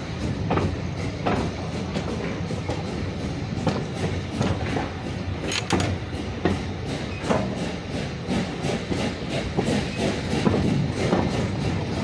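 Running noise of a slowly moving train: a steady low rumble with irregular knocks and clicks from the wheels and carriage, heard together with music.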